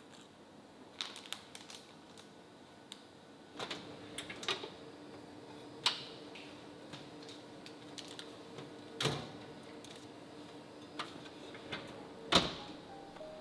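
Built-in fan oven being opened and handled: scattered clicks and knocks from the door and the wire rack, over a low steady hum from the oven's fan that begins a few seconds in. A sharper knock comes near the end.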